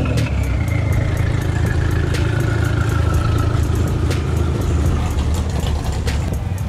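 Car engine idling close by, a steady low hum, with a faint high tone slowly falling in pitch over the first few seconds.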